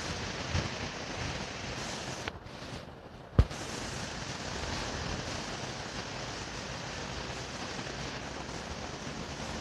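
National FMY159 industrial ceiling fan running, a steady rush of air. The noise drops away briefly about two and a half seconds in and comes back with a sharp click.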